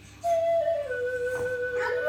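Native American flute playing a long held note that starts a moment in, slides down a step about a second in and holds.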